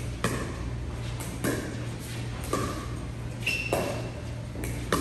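Pickleball rally: paddles striking the hollow plastic ball, five sharp pops a little over a second apart, some with a short ringing tone. A steady low hum runs underneath.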